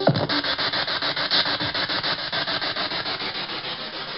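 Radio static chopped into a fast, even pulse of about eight beats a second, the sound of a spirit box sweeping through radio stations. A brief falling tone breaks through right at the start, and the hiss eases slightly near the end.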